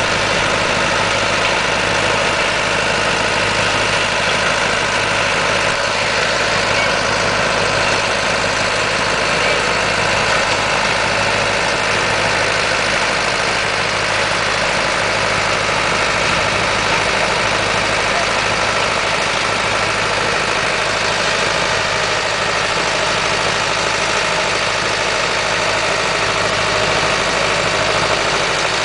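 Engine of harvesting machinery running steadily at a constant, loud level, with a low even hum under a broad steady noise.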